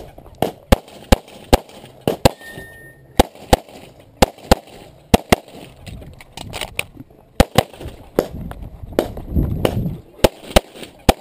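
Pistol fired rapidly, mostly in quick pairs a fraction of a second apart, in a USPSA practical shooting stage. The shots stop for about two and a half seconds of low rumbling movement, then three more come near the end.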